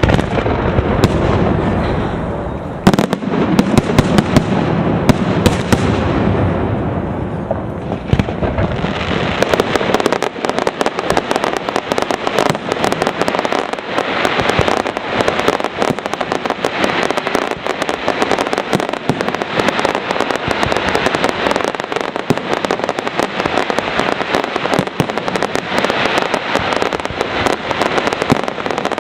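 Aerial firework shells bursting in a loud barrage: deep booms during the first several seconds, then from about ten seconds in a dense, rapid run of sharp reports that does not let up.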